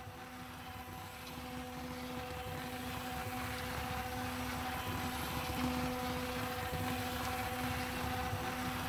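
A steady low hum with a few pitched overtones, growing gradually louder.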